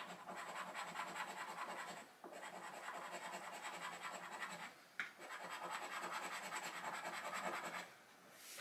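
A scratchcard's latex panel being scratched off in quick, rhythmic strokes, about six a second, in three bouts with brief pauses about two and five seconds in.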